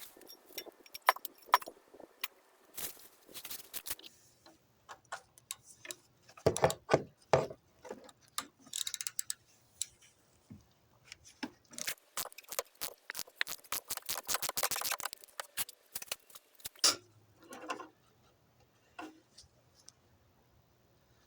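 Irregular clicks, knocks and rattles of objects being handled, busiest and loudest around a third of the way in and again past the middle, then falling quieter near the end.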